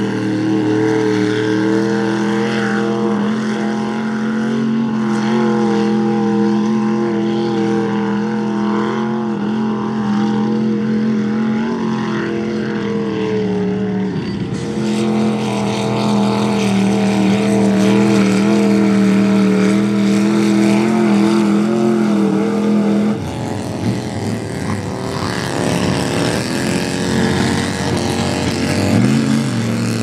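Big-block Ford V8 in a lifted old-body-style Ford pickup running hard at a steady pitch as it churns through a mud bog. About three-quarters of the way through, the steady note breaks off and the revs rise and fall.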